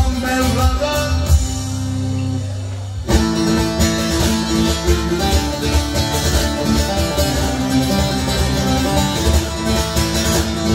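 Bağlama (Turkish long-necked saz) playing an instrumental passage of a Turkish folk song, amplified, with deep low notes underneath. The playing thins briefly and comes back fuller about three seconds in.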